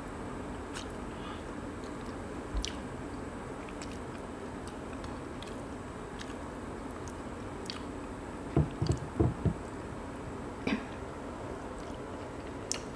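Hands picking apart a cooked spiny lobster's shell, with chewing: scattered small cracks and clicks over a steady background hiss. A quick cluster of four or five dull knocks comes about eight and a half seconds in, the loudest sound.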